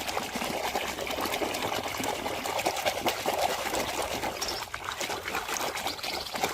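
Water trickling and pouring steadily over a muddy toy as it is washed.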